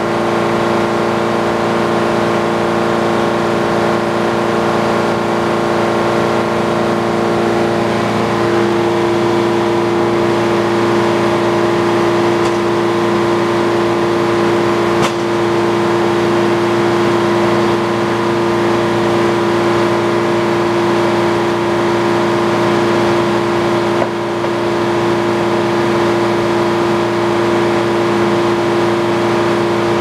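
Old sawmill running between cuts: the large circular head saw spins free while the mill's engine runs steadily, a loud even hum with several held tones. A stronger tone joins about eight seconds in.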